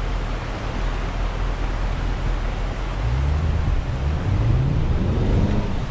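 A steady rushing of river water and wind on the microphone, with an off-road SUV's engine revving up and down from about halfway through as it drives through the shallow river.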